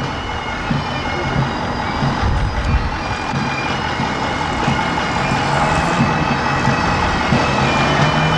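Pipe band's bagpipes playing a marching tune, growing gradually louder, over a low irregular rumble.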